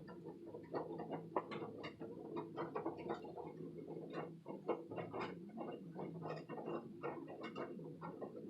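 Washing machine running, a steady low hum under a stream of irregular quick clicks and taps.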